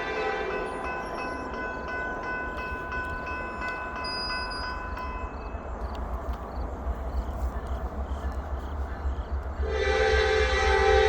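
A diesel freight locomotive's horn sounding for a grade crossing: a blast dies away about a second in, a fainter steady tone lingers for a few seconds, and a loud new blast starts near the end, over a low rumble.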